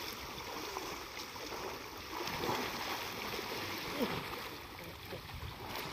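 Water sloshing and swirling as elephants wade and swim through deep pond water, a steady rushing wash.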